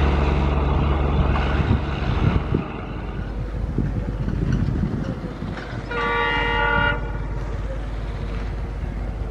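Low rumble of a passing train that drops away about two and a half seconds in. Then an approaching WDP4D diesel locomotive sounds one horn blast about a second long, a little past the middle.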